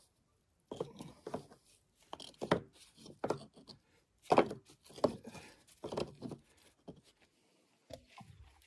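Rough field stones knocking and scraping against one another as they are handled and set into a stone wall by a gloved hand: a run of irregular knocks and scrapes with short pauses, loudest about halfway through.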